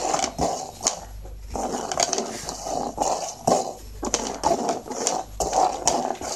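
Plastic cups being slid and knocked about on a hard floor as they are shuffled, with a dog sniffing and nosing at them; a run of short irregular scrapes and clicks.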